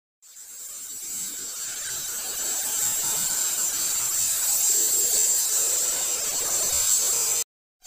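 Steady breathy hiss of a child blowing through a drinking straw to inflate two small balloons, getting louder over the first few seconds and then cutting off suddenly near the end.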